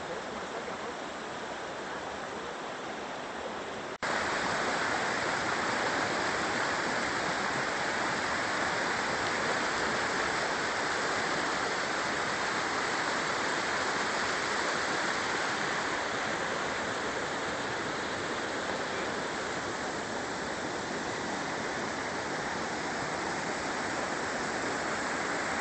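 Mountain river rushing, a steady, even rush of water. About four seconds in it cuts abruptly to a louder, fuller rush.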